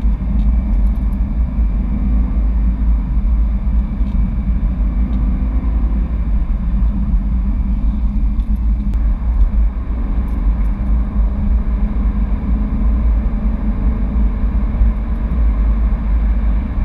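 Cabin noise of a BMW E92 M3 on the move: a steady low road rumble with the car's V8 engine running underneath.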